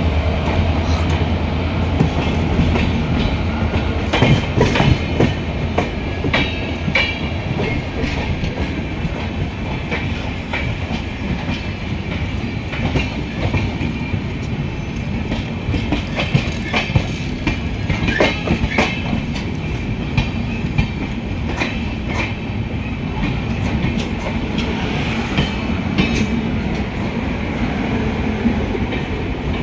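A train running on the track, with a steady rumble and wheels clicking now and then over rail joints.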